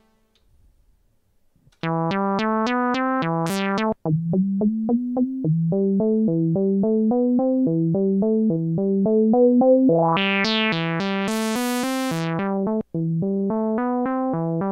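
Roland SH-32 synthesizer playing a Juno-style patch: a fast, evenly spaced run of short notes cycling through a few pitches, about five a second, starting about two seconds in. Around ten seconds in the filter is opened and the notes turn much brighter for a couple of seconds, then close back down.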